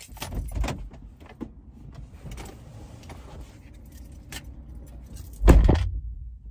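Rustling and small clicks as someone climbs out of a car, then the car door shuts with one loud thud about five and a half seconds in.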